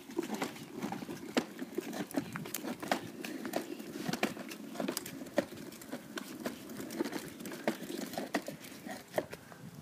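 Plastic wheels of a Kiddieland Sofia the First ride-on toy car rolling over concrete pavement: a steady rough rumble with many irregular clicks and rattles.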